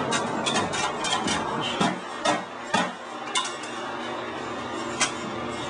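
A run of sharp metallic clicks and clinks as quarters are fed into a wall-mounted coin-operated vending machine and its coin mechanism works, with a few louder clunks in the second half.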